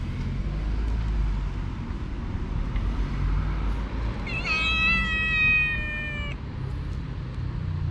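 Tabby street cat gives one long, high, drawn-out meow, about two seconds long, starting about four seconds in, as it squares up to another cat. A low traffic rumble runs underneath.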